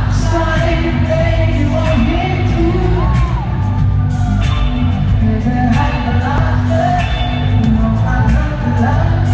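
Live pop concert heard from the crowd in an arena: a male lead singer over a band with heavy bass and a steady beat.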